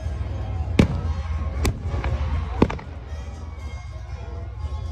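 Aerial fireworks shells bursting: three sharp bangs in the first three seconds over a continuous low rumble, then a quieter stretch.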